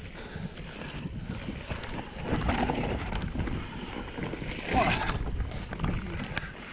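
Enduro mountain bike riding down a dirt singletrack: tyres rolling over dirt and stones and the bike rattling and knocking over bumps, with wind on the microphone. It gets louder and rougher about two and a half and five seconds in.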